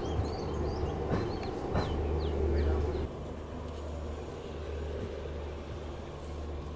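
Small birds chirping in quick short calls for the first half, over a steady low rumble that drops a little about three seconds in.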